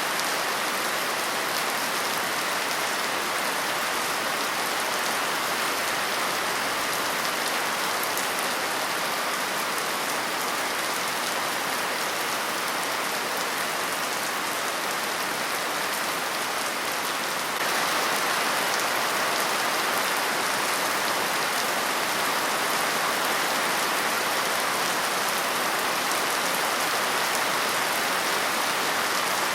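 Steady rain falling on a surface, an even hiss with no distinct drops standing out. About two-thirds of the way through it becomes abruptly a little louder and brighter.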